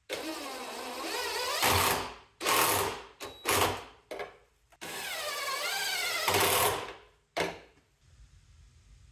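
A small power tool's motor run in six bursts, the two longest about two seconds each, its pitch wavering up and down as the speed changes.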